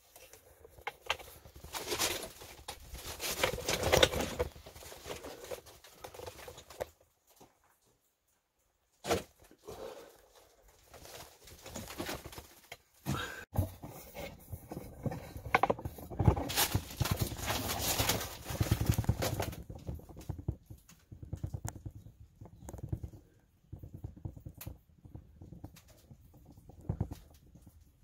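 Footsteps clattering and scraping over loose stones and rock, in uneven bursts, stopping for a moment about seven seconds in.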